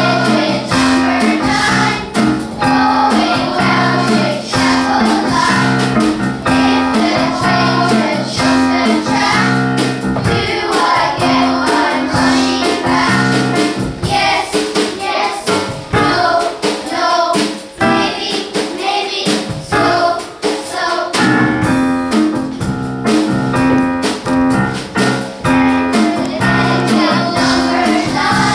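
Children's choir singing a lively song together over instrumental backing with a steady, repeating bass line. The backing thins out for a few seconds in the middle while the singing carries on.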